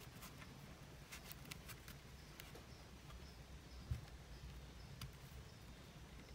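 Near silence, broken by faint scattered clicks of a 2.5 mm metal crochet hook and yarn being worked stitch by stitch, and one soft low thump about four seconds in.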